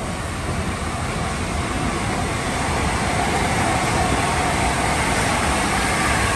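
LNER A4 Pacific steam locomotive 60007 Sir Nigel Gresley drawing its train slowly along the platform, a steady noisy rumble that grows louder as it nears.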